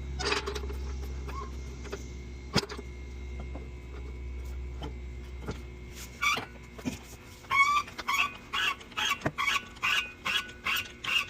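A few sharp knocks over a low steady hum that dies away about seven seconds in. Then an animal starts calling over and over, about two loud pitched calls a second.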